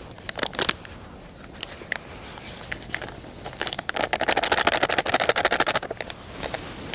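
Plastic boil-in-the-bag pouch crinkling and crackling as curry is worked out of it, with scattered clicks at first and a loud, rapid run of crackling from about halfway to near the end.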